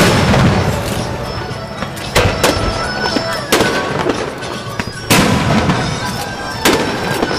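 Aerial firework shells bursting overhead: about six sharp booms, the loudest right at the start and a close pair a little after two seconds in, each trailing off in a rumble.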